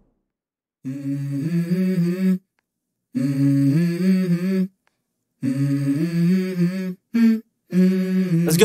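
Background music: a song intro with an unaccompanied hummed vocal melody that starts about a second in, in short repeated phrases of stepping notes with brief pauses between them.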